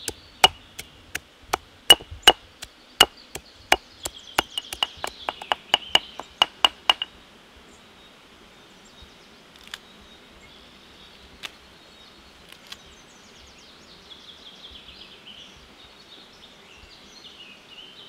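A run of sharp chopping strikes on wood, about two a second and quickening to about three a second, ending about seven seconds in. A few single knocks follow, with faint bird chirps.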